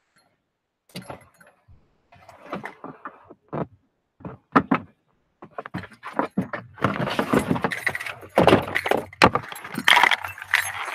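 Scattered plastic clicks and knocks starting about a second in, then a busier rattling clatter over the last few seconds, as the wiring connectors are unplugged from a removed car door panel.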